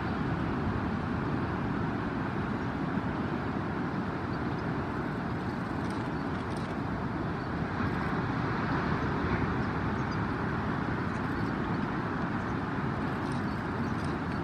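Steady outdoor rushing noise, even and unbroken, with no bird calls standing out.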